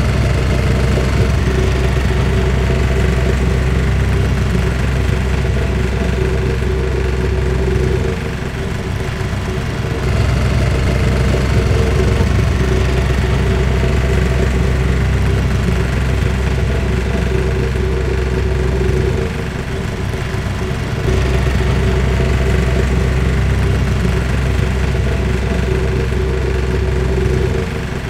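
Small DC electric motors of a homemade toy tractor running with a steady hum as its screw auger drills into dry soil, the sound dropping briefly twice, about eight and nineteen seconds in.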